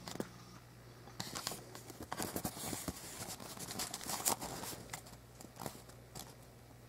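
Irregular rustling and crinkling with scattered clicks, busiest between about one and five seconds in, over a faint steady low hum.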